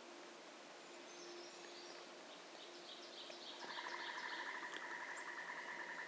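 A frog's fast pulsing trill starts a little past halfway and runs about two and a half seconds. Under it and just before it, a faint bird song of quick repeated high notes.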